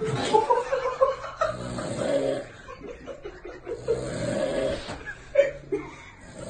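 A sleeping man snoring loudly: two long snores, a few seconds apart.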